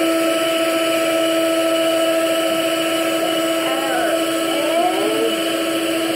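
Electric mixer running steadily at one speed, its motor giving a constant whine while mixing cake batter.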